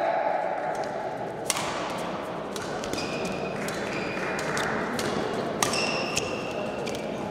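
Badminton being played in an indoor hall: a string of sharp racket hits on the shuttlecock, mixed with short high squeaks from shoes on the court floor.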